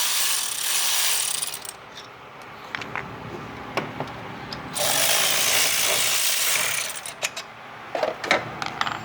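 A power tool runs twice, each time for about one and a half to two seconds, with ratchet clicks and metal knocks between, as the bolts of an alternator are undone to take it off.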